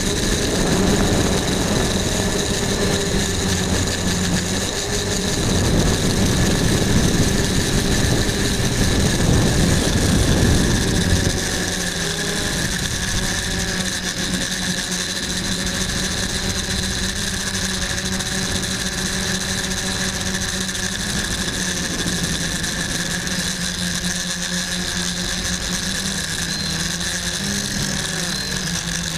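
Quadcopter motors and propellers running steadily, with a constant multi-tone whine. For the first eleven seconds or so a heavier low rumble lies under it, then the sound settles to a steadier hum.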